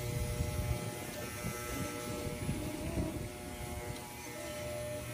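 Corded electric pet clippers buzzing steadily as they run through a dog's long, shaggy coat.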